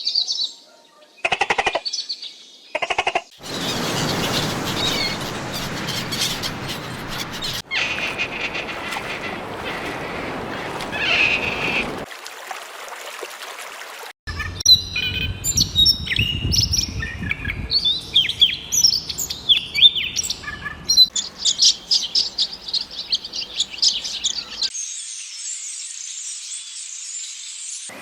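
Birds chirping and calling, in several short clips cut one after another; some stretches are a dense chatter of many calls, others are quick high chirps.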